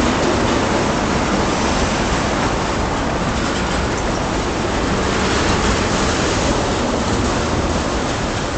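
Tank cars of a freight train rolling past, their steel wheels on the rails making a steady, even rushing noise.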